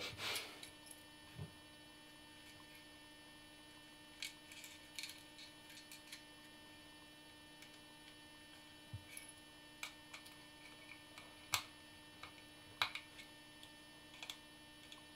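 Steady low electrical hum, with scattered faint clicks and taps of small screws, a screwdriver and plastic mouse parts being handled as the screws are driven in.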